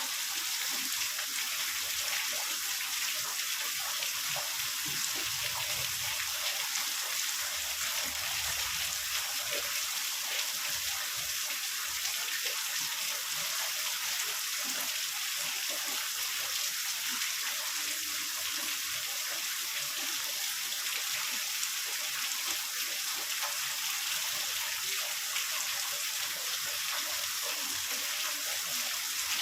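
Heavy rain falling in a steady, even hiss, with two brief low rumbles about five and eight seconds in.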